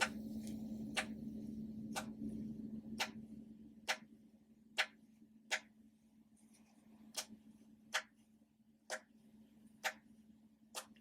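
Ocean-animal popper toys being popped, about a dozen sharp pops at roughly one a second, over a low steady hum that fades after about three seconds.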